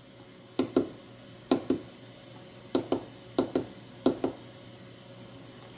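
Small tactile push buttons on a DSO150 handheld digital oscilloscope clicking as they are pressed: five presses, each heard as a quick pair of clicks, roughly a second apart.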